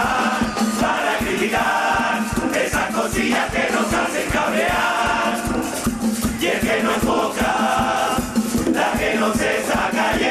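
Canarian carnival murga chorus of men singing together over a steady, fast drum beat.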